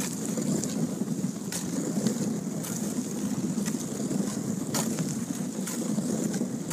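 Wind rumbling on the microphone of a kayak under way, with a sharp splash or tick about once a second as the paddle blades dip into the water.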